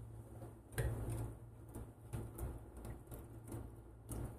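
Faint light clicks and ticks of a stainless cocktail shaker tin and coiled strainer while a shaken drink is strained into a glass.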